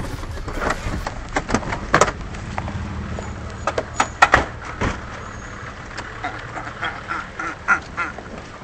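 A series of knocks and clunks from a jostled handheld camera as people climb out of a car and hurry along a pavement, with a few short, distorted voice sounds near the end.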